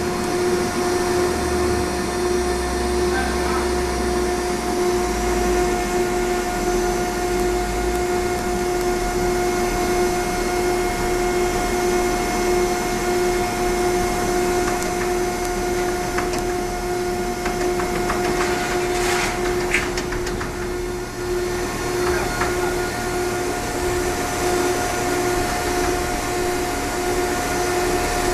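Baling machine running with a steady mechanical hum and a constant whine. A short rattle comes about two-thirds of the way through.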